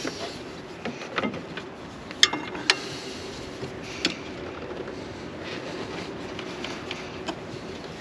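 Screwdriver and hose clamp clicking and clinking as a fuel hose clamp is tightened, with two sharp metallic clicks a bit over two seconds in and scattered lighter ones. A steady low hum runs underneath.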